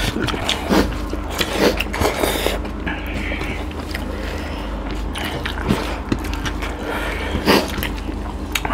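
Eating sounds of two people eating with their hands: chewing and mouth noises at irregular moments, with fingers scraping food across steel plates, over a steady low hum.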